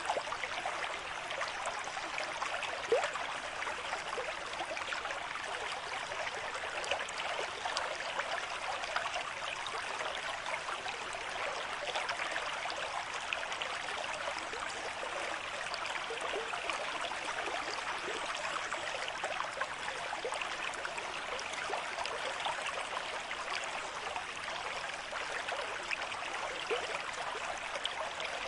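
Stream of water flowing at a moderate rate: a steady rush with many small splashes.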